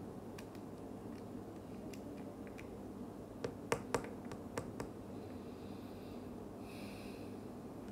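Several light, sharp clicks or taps in quick succession about halfway through, over a steady low room hum.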